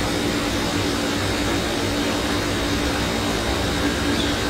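Steady fan-like background hum and hiss with a low droning tone, unchanging throughout.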